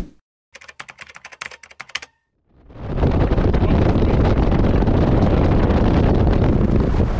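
Steady rush of wind and water from a fast-moving boat, fading in about two and a half seconds in and then holding even. Before it comes a short, rapid run of faint clicks.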